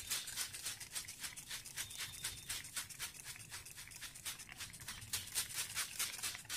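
Hand-held trigger spray bottle pumped quickly, each pull giving a short hissing spritz of water, several a second in a steady run.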